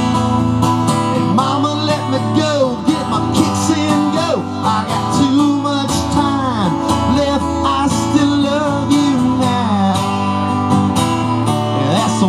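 Steel-string acoustic-electric guitar strummed in a steady country rhythm, an instrumental break between sung verses, with wordless voice notes gliding up and down over the chords.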